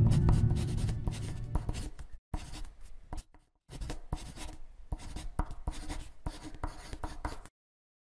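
Marker pen writing: irregular short scratchy strokes as the words are drawn, stopping abruptly near the end. A low rumble fades out over the first two seconds.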